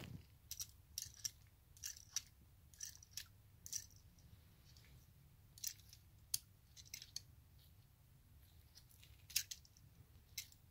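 Faint, irregular small clicks and taps of a metal carburettor body being handled and turned in gloved hands, about twenty in all.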